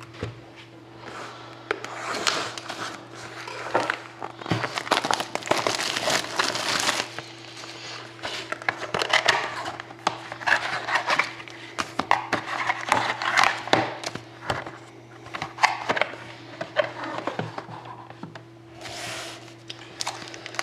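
Hands opening a box of trading-card packs: cardboard and plastic wrapping rustling and crinkling, with frequent small clicks and taps. A faint steady hum sits underneath.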